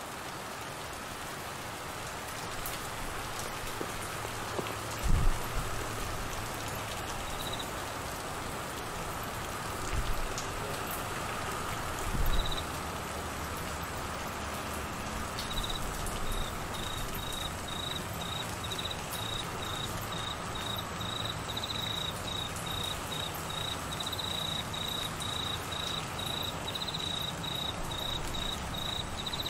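Steady rain falling on trees and ground. A cricket chirps in an even rhythm of about two chirps a second, starting from about halfway through. Three short low thumps come in the first half.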